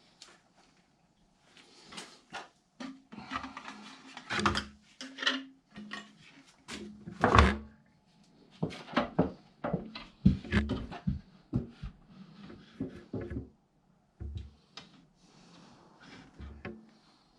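Irregular knocks, clicks and scrapes of hand tools and metal hardware being handled during wiring work, with one heavier knock about seven seconds in.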